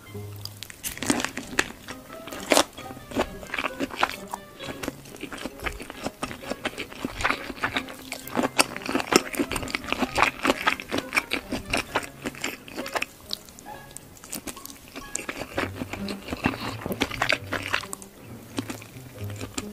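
Close-miked biting, crunching and chewing of fried shrimp in creamy sauce, with many sharp crunches throughout, over background music with a low bass line.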